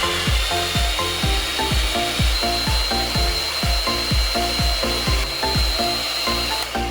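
An electric blender running with a steady whirring motor whine that steps up a little in pitch a bit over two seconds in, then stops just before the end, over background music with a steady beat.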